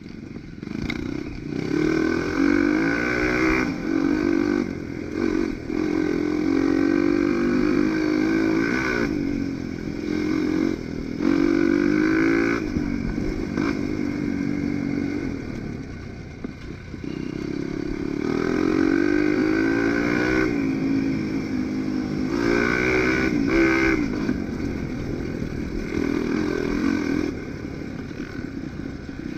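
Dirt bike engine being ridden, revving up and easing off in repeated surges, its pitch rising and falling with the throttle. It drops back for a while about halfway through and again near the end.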